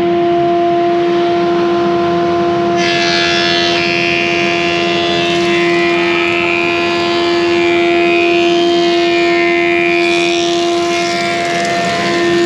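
Planer-thicknesser running with a steady hum; about three seconds in, an oak board starts feeding through and the cutter head sets up a harsh cutting noise over the hum, dying away near the end as the board passes out.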